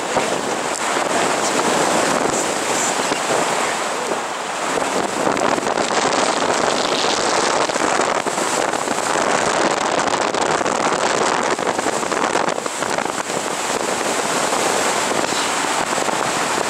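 Wind rushing over a camera microphone held out of a moving car's open window, mixed with tyre and road noise, a steady noisy rush that wavers in strength.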